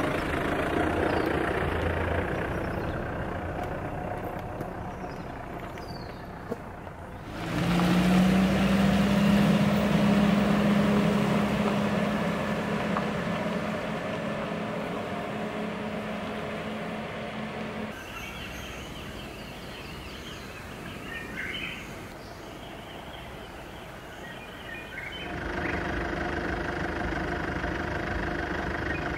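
A 4x4 SUV driving on a rough dirt road, its engine running with tyre noise on the gravel and dirt; the sound changes abruptly several times, with a louder, steadier hum for several seconds in the middle.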